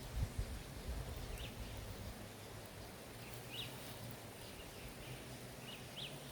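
Quiet outdoor ambience with a few short, faint bird chirps scattered through it, over a steady low hum. A soft thump comes right at the start.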